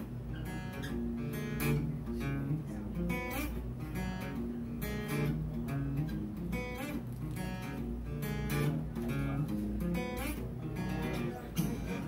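Acoustic guitar strummed in a steady rhythm, chords ringing.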